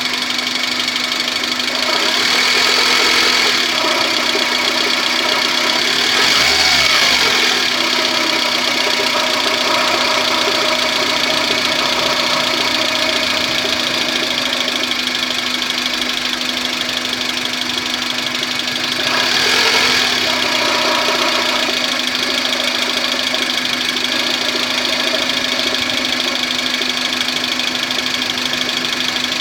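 Maruti Suzuki Esteem MPFI petrol engine running around idle with a steady hum. It briefly picks up speed a few times, at about two, six and nineteen seconds in. It makes the strange noise the owner hears just above idle, around 1200–1400 rpm.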